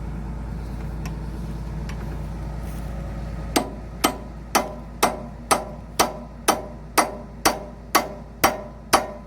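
Hammer striking steel in a steady rhythm of about two blows a second, each blow ringing, starting about three and a half seconds in, while the H-link is fitted on a Hitachi ZX210-5G excavator. Under it, a steady low engine hum.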